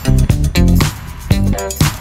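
Background music: a funk-style track with bass, guitar and a steady beat.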